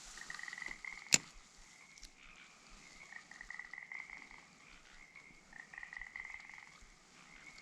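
Frogs calling from a pond: several rattling, pulsed trills of about a second each, one after another. A single sharp click about a second in.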